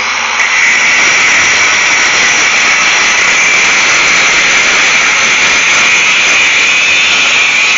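Electric angle grinder cutting through the steel rods of a pig-panel fence, trimming off their protruding ends. A loud, steady, high-pitched grinding whine.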